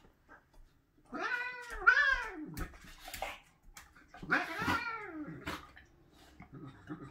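Orange tabby cat yowling at a dog nosing at it: two long drawn-out calls, each rising then falling in pitch, with a shorter, weaker one near the end.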